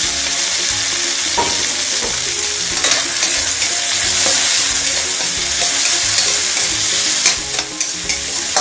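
Sliced tomatoes, onion and garlic sizzling loudly in hot olive oil in a non-stick wok while a spatula stirs them. A few sharp taps and scrapes come from the spatula against the pan.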